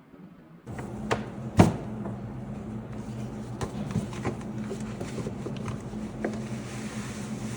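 Unboxing handling: a sharp knock about a second and a half in, then scattered light clicks and taps over a steady low hum.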